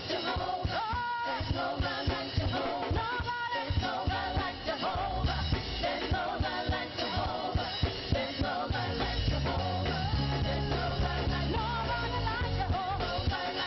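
Live gospel praise-and-worship music: singing over a full band, the bass filling out more heavily about two-thirds of the way through.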